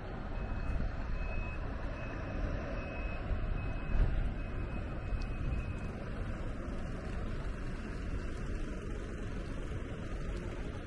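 Steady rumble of wind on the microphone and road traffic while riding a bicycle along a city street. A run of short high electronic beeps, about two a second, lasts for the first six seconds or so, and there is a brief knock about four seconds in.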